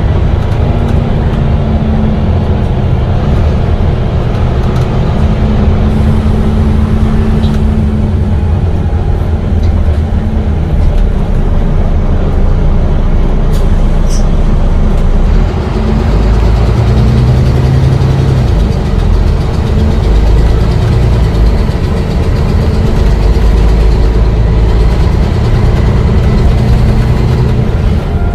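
Volvo B9TL bus diesel engine running, its note rising and falling as it pulls away and settles.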